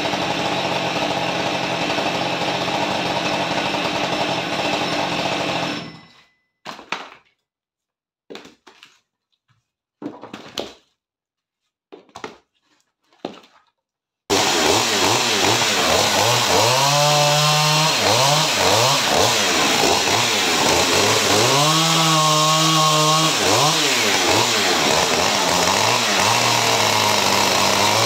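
Husqvarna 550 XP Mark II two-stroke chainsaw running. It stops about six seconds in, leaving near quiet with a few short knocks, then comes back abruptly about halfway through. Its engine pitch rises and falls twice.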